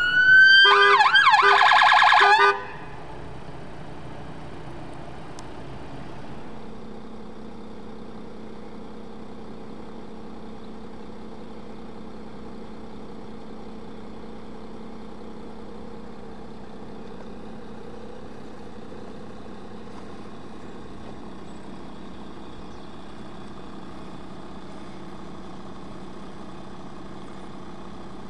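Emergency vehicle's electronic siren sweeping up in pitch, switching to a rapid warble, then cutting off suddenly about two and a half seconds in. After that a steady, much quieter vehicle engine hum and road noise carries on.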